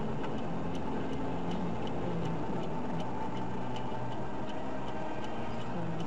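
Steady road and engine noise inside a moving car, with a light ticking about twice a second.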